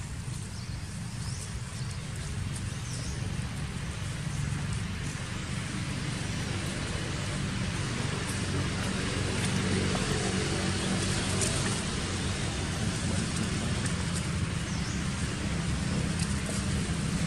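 Steady outdoor background noise: a low rumble with an even hiss, slowly growing louder, with a couple of faint short high chirps.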